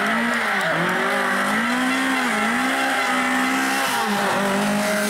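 Lada rally car's four-cylinder engine revving hard through a corner, its pitch rising and dipping several times as the throttle is worked, with tyres squealing on the tarmac.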